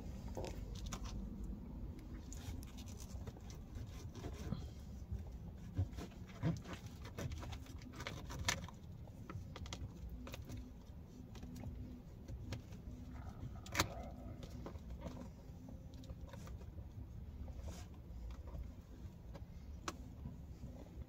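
A plastic fork clicking and scraping against plastic takeout containers at irregular moments, with a few sharper clicks, over a steady low hum inside a car.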